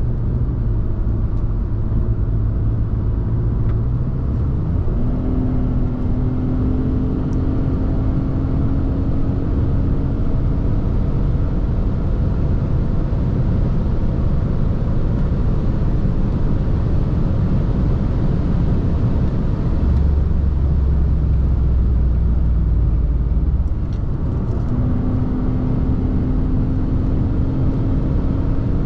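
Inside the cabin of a 2005 Audi A6 2.4 accelerating at speed: the 2.4-litre V6 pulls with a faint engine tone that rises slowly, over a steady low rumble of tyres and road. For a few seconds past the middle a deeper drone comes up, then drops away.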